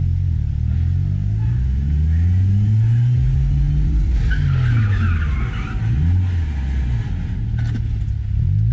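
Car engine heard from inside the cabin, revving up and dropping back again and again as the car accelerates through the gears, with a brief squeal about halfway through.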